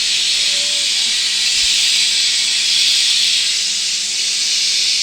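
Steady sizzling hiss of oil as potato and chicken cutlets fry.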